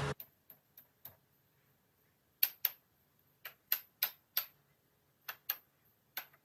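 Wood knocking on wood as a sofa frame's rail and leg joint are worked together by hand: a louder knock at the start, then a dozen or so short, sharp taps at irregular spacing, several in quick pairs.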